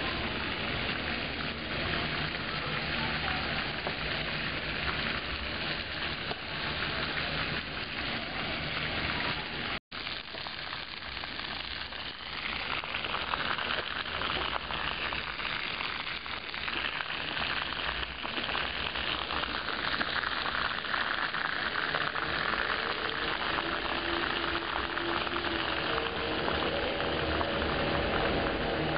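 Steady hissing background noise, broken by a short dropout about ten seconds in; faint pitched tones come in near the end.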